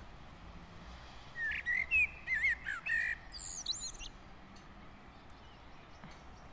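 A songbird singing one phrase: sliding whistled notes, then a higher, quicker twitter, ending about four seconds in.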